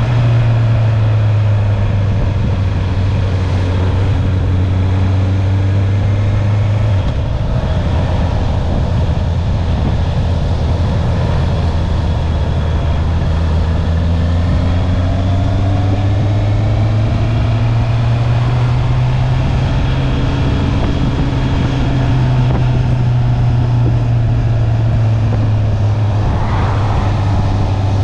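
Stock Honda CB650R's inline-four engine running under way on the road. Its note drops about seven seconds in, then climbs steadily as the bike accelerates, with a brief higher rising note near the end. Wind rushes over the microphone throughout.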